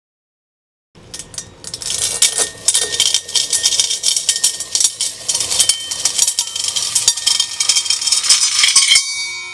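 Nickel-plated metal bead chain pouring out of a tumbler in a chain fountain: a loud, dense rattling clatter of beads running over the rim, starting about a second in. Near the end the clatter stops suddenly, leaving a brief metallic ringing.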